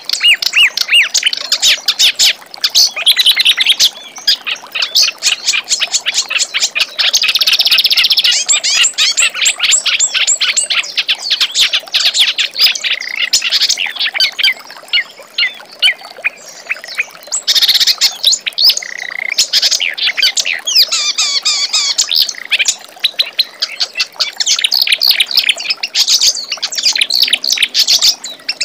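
Kerak basi reed warbler singing a long, harsh, chattering song of rapid repeated notes, running on with only brief lulls.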